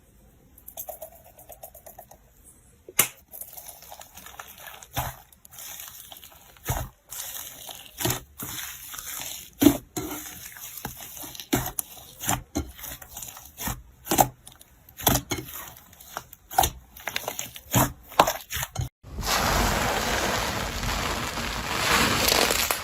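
Slime being squeezed and poked by hand, giving irregular sticky pops and clicks. About three quarters of the way in it turns to a few seconds of dense, continuous squishing and crackling.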